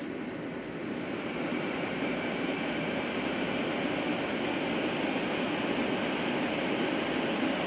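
Cabin running noise of a 500 series Shinkansen at speed: a steady rush of rail and wheel noise that grows louder a second or two in, as the train runs into a tunnel.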